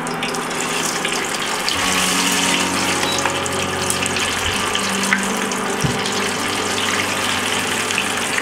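Flour-coated tilapia pieces deep-frying in hot oil in a small saucepan: a steady, busy sizzling and bubbling, with a low hum underneath and a couple of light clicks about five and six seconds in.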